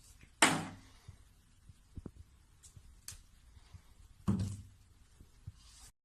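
Two dull thumps about four seconds apart, each dying away quickly, with a few faint clicks between them.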